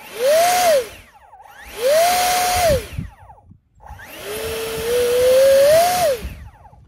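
Electric ducted fan from an E-flite Habu SS jet, now mounted in a jet boat, throttled up and back down three times: a high whine over a rush of air, each time rising in pitch, holding and winding down. The third run is the longest, its pitch creeping slowly higher before it drops away.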